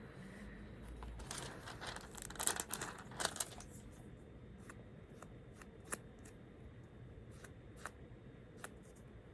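Small household handling sounds: a couple of seconds of dry, scraping strokes, then a few scattered light clicks.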